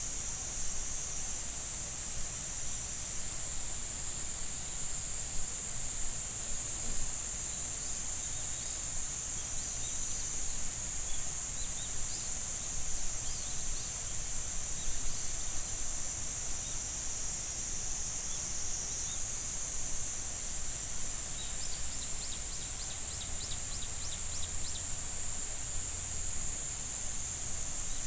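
A steady, high-pitched chorus of summer insects that never lets up, over a faint, even rush of flowing water. A few short bird chirps come through in the middle, and a quick run of chirps follows about three-quarters of the way in.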